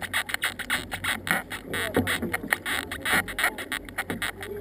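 Canoe paddling on open water: paddles dipping and pulling through the water in irregular splashes and drips, with water slapping against the hull.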